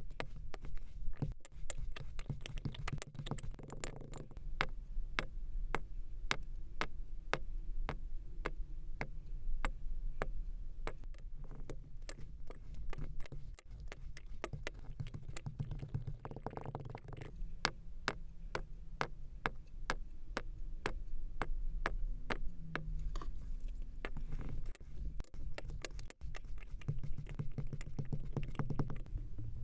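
Kinetic sand being cut and handled: a long run of sharp clicks, about two to three a second, over a steady low rumble.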